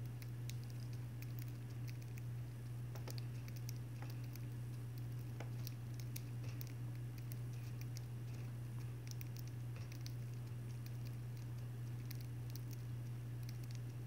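Budgerigars pecking and cracking seeds at a seed dish: many small, irregular clicks and crackles, over a steady low hum.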